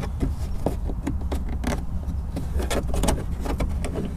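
Plastic interior trim on a Toyota 4Runner's rear headliner being pulled and worked loose by hand from its push-in clips: a run of small irregular clicks and creaks.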